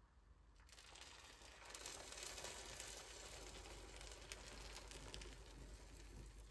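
Syrup poured from a small saucepan over a dish of crisp rolled baklava: a faint, steady crackling hiss as the syrup lands on and soaks into the pastry. It starts about a second in and is strongest a little after.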